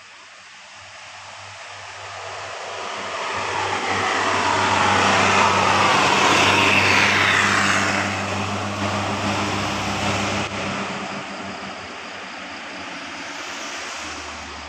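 A road vehicle driving past: engine hum and tyre noise build up, peak about six seconds in, then fade away.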